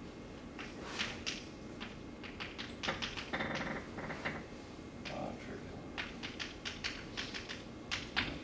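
Chalk tapping and scratching on a blackboard as words are written: quick, irregular clicks with a longer scratchy stroke about three and a half seconds in.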